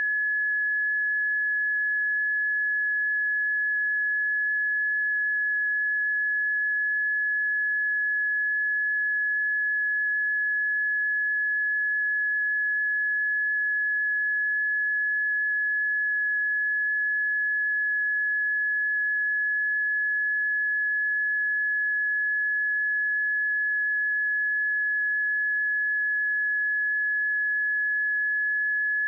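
Steady single high tone from a seismic early-warning audio monitor, holding one pitch without change: the monitor's resting tone, with no change that would signal an earthquake or eruption.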